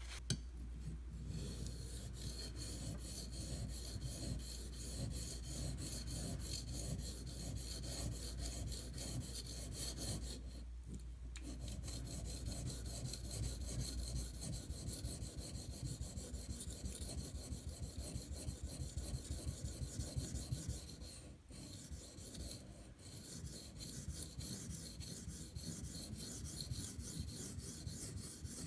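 Steel knife blade drawn back and forth over an 800-grit Venev bonded diamond stone by hand, a steady run of quick light scraping strokes. The strokes break off briefly about ten seconds in and again about twenty-one seconds in.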